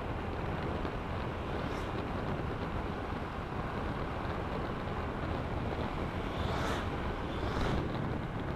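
Wind rushing over a helmet-mounted action camera's microphone, over the steady drone of a Honda Vario 125 scooter's single-cylinder engine and tyres while riding. Two brief gusts of hiss come near the end.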